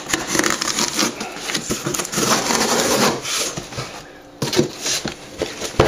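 Large cardboard shipping box being torn and pulled open: scraping, rubbing and tearing of cardboard, with a short lull about four seconds in and a few knocks after it.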